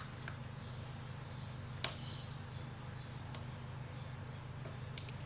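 A few sharp clicks and faint scratching as a plastic pry tool works at the front sticker ring of a small CCTV lens, over a steady low hum.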